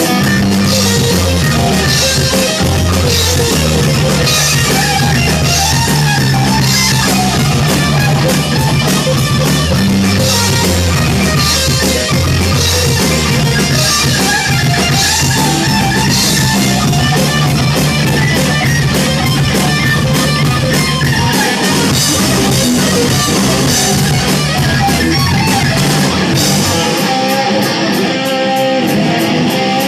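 Hard rock music: electric guitar over bass and a drum kit, playing loud and without a break; the bass drops away near the end.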